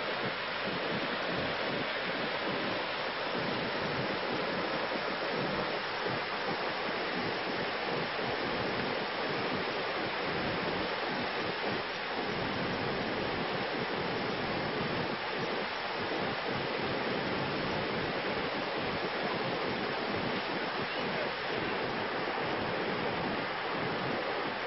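Fast, swollen floodwater rushing and churning in white-water rapids. It makes a steady, even rushing noise that does not let up.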